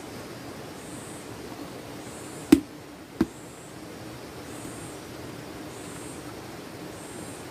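Two sharp knocks about two-thirds of a second apart, the first louder, over a steady background hiss.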